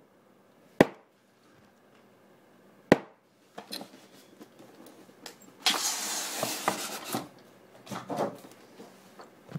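Cardboard keyboard packaging being handled and opened. There are two sharp knocks in the first three seconds, then about a second and a half of sliding, rubbing noise around the middle, with softer knocks and rustles after.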